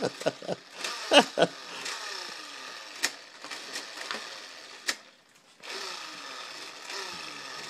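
Toy rev grip on the handlebar of a child's bicycle being twisted, making a rapid clicking, motor-like revving noise. It stops briefly a little after five seconds, then starts again with repeated falling tones.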